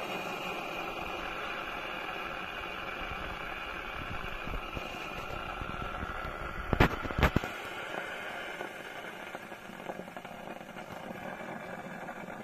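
AEG EA150 espresso machine's dimmer-modded pump running steadily during a double espresso extraction, a humming and hissing sound. A little past the middle come two sharp clicks about half a second apart.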